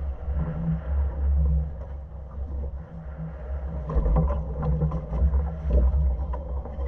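Low, uneven rumble of a boat's engine running, with wind buffeting the microphone. Scattered splashes and knocks come in from about four seconds in, as a yellowfin tuna reaches the side of the boat.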